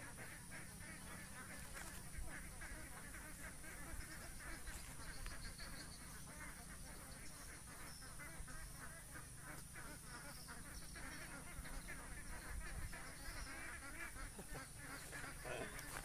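Waterfowl calling in a rapid, irregular run of short calls, over a steady high hiss.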